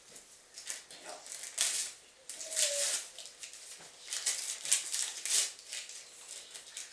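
Crinkling and rustling of wrapping as a gift tube is opened and its contents are worked out by hand, in several bursts.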